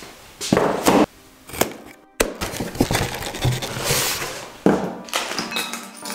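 Unpacking a machine's boxed parts: a cardboard box knocked and handled on a wooden workbench, plastic bags crinkling, and a series of sharp knocks and clatters.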